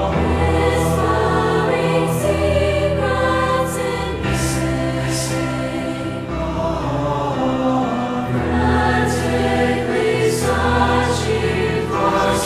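Music: a choir singing sustained chords over low held bass notes, with the chords changing every couple of seconds.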